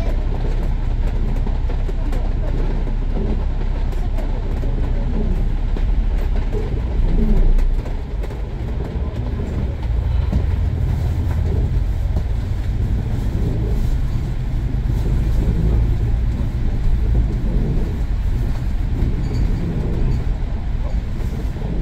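A bus in motion, heard from inside: a steady low rumble of engine and road noise. It swells briefly about seven seconds in, then drops back.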